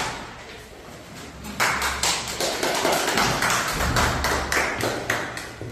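A small group of people clapping. It starts about a second and a half in as a quick run of separate claps and dies away near the end.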